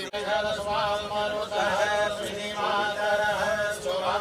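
A man chanting Hindu Sanskrit mantras for a bhoomi pujan rite, in several long held phrases on a steady pitch with short breaks for breath.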